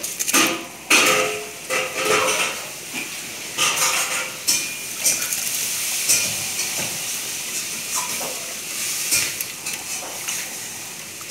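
Soaked rice scooped by hand from a metal bowl of water and dropped into a pot of boiling water, with irregular wet splashes and scrapes of hands and rice against the metal bowls.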